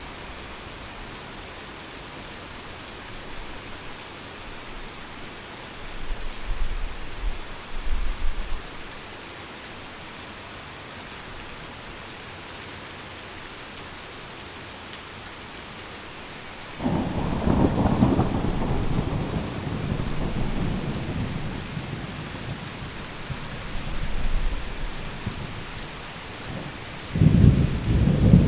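Heavy rain falling steadily, with thunder. A low rumble comes about six seconds in, then a sudden loud thunderclap about seventeen seconds in rolls on for several seconds, and another clap breaks near the end.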